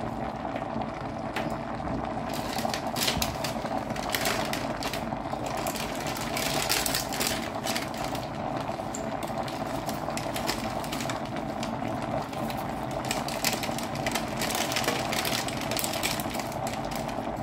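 Cooking pot boiling on the hob: a steady bubbling hiss with irregular small crackles and pops.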